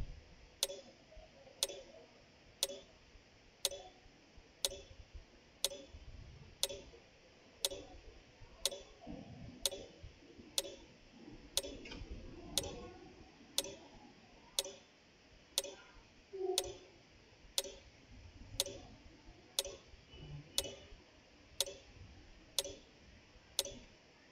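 A clock ticking steadily, about once a second.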